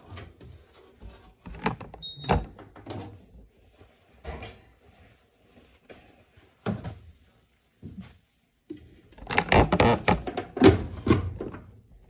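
Handling noise at a top-loading washing machine: scattered knocks and thuds, with a short high beep about two seconds in. Near the end comes a busier run of knocks and rustling as the wet clothes in the tub are moved by hand.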